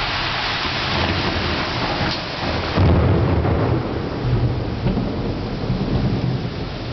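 Steady hiss of heavy rain, then about three seconds in a loud low rumble of thunder begins and rolls on in uneven swells.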